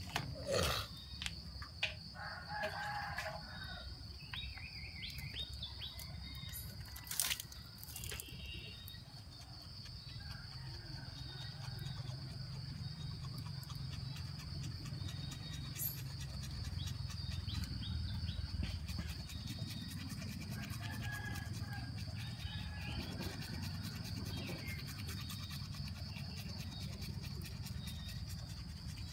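A steady high drone of insects such as crickets runs throughout, with scattered bird chirps and a rooster crowing faintly. A few sharp knocks stand out in the first several seconds.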